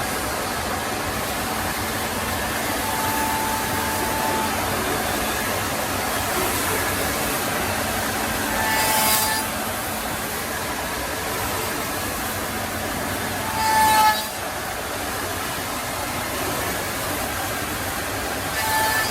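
Woodmaster four-axis CNC wood router cutting wooden chair legs, a steady machining noise with three brief louder surges about five seconds apart in the second half.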